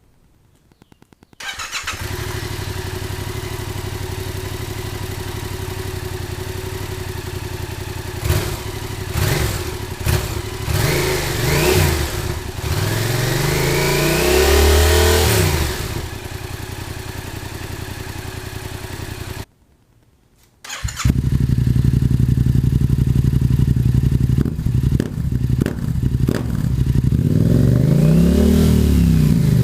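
Yamaha FZ-07 parallel-twin motorcycle engine and exhaust idling, then revved in quick blips and held up at about 3,000 to 4,000 rpm before dropping back to idle. After a short break about two-thirds of the way in, a second, louder stretch of idling with revs.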